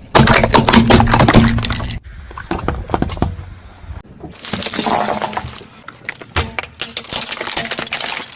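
Soda bottles crushed under a car's tyres: crackling and cracking, with the fizzy drink spraying and splashing out. It comes in three separate bursts that break off abruptly about two and four seconds in.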